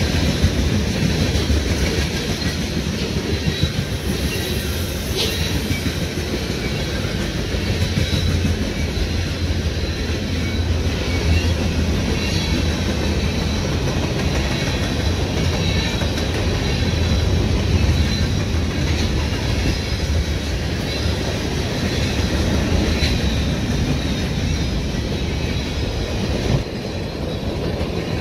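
Freight train cars rolling steadily past: a continuous rumble of steel wheels on rail, with the hoppers and boxcars clattering by.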